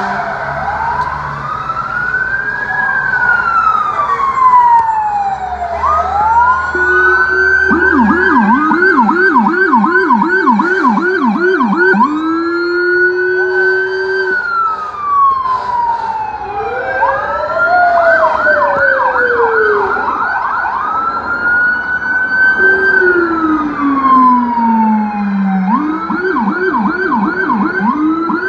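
Several emergency vehicle sirens sounding at once, switching between slow rising-and-falling wails and fast yelps, with one lower-pitched siren among them.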